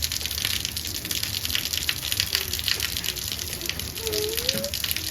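Steady heavy rain falling and splashing, a dense hiss full of fine pattering ticks. A child's voice rises faintly about four seconds in.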